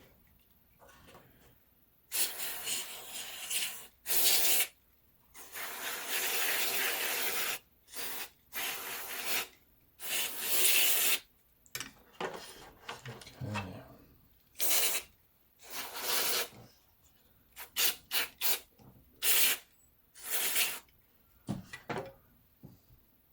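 Aerosol electrical contact cleaner sprayed in repeated hissing bursts into the control-stick units of a radio controller to flush out dust that has made the sticks unresponsive: several long sprays of one to two seconds, then shorter quick spurts near the end.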